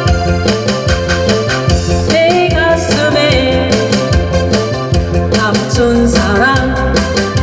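A woman singing a Korean trot song into a microphone over an accompaniment with a steady drum beat. Her voice comes in about two seconds in.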